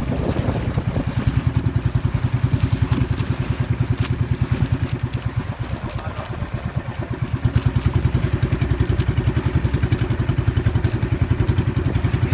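Small boat engine running with a rapid, even chugging beat; it eases off briefly about halfway through, then picks up again.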